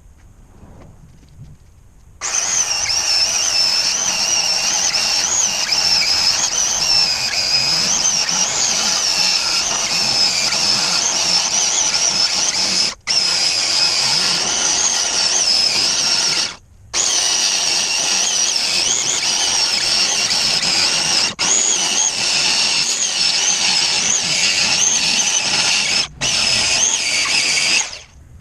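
A handheld power tool running under load in long stretches, its high whine wavering in pitch as it works, with four short pauses where it stops and restarts.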